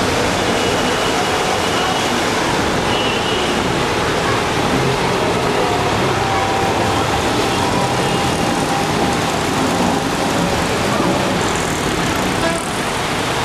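Auto-rickshaws driving through a flooded street, their engines running and their wheels splashing through the water, heard as a steady rushing noise.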